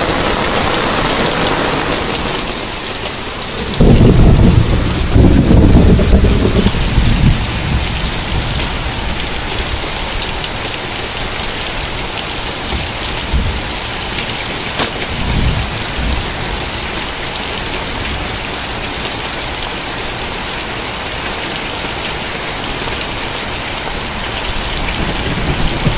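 Heavy monsoon rain pouring steadily, an even hiss of rain falling on surfaces. About four seconds in, a loud low rumble rises over the rain for a few seconds, and weaker ones follow later.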